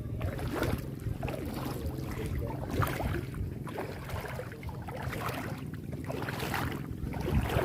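Feet wading through shallow seawater: irregular splashing and sloshing over a steady low rumble.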